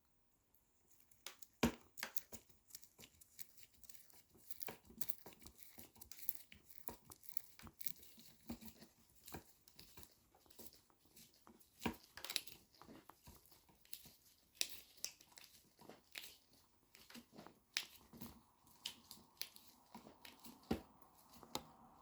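A hand screwdriver driving a screw into the motor protection cover of a Samsung Jet 90 stick vacuum: irregular clicks and scraping as the screw is turned and the parts are handled.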